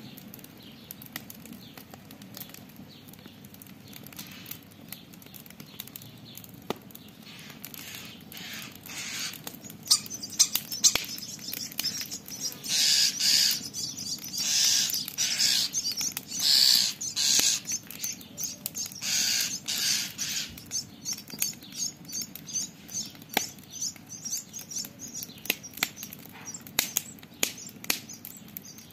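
Campfire crackling with sharp pops throughout. In the middle, a run of loud, harsh, noisy calls, each under a second long: a common starling scolding.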